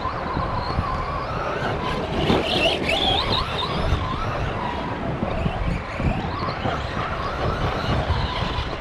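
Electric motor of an Arrma Big Rock RC monster truck whining, its pitch rising and falling as the throttle is worked, over a rough low rumble.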